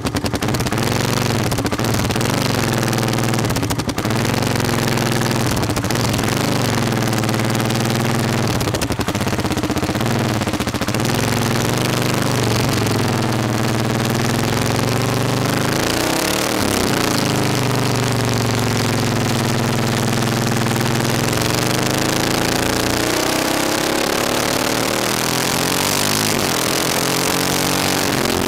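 Motorcycle engine heard from a camera mounted on the bike, running at road speed, its revs rising and falling again and again through the bends. Wind rush on the microphone grows stronger in the second half, and there are irregular knocks in the first ten seconds or so.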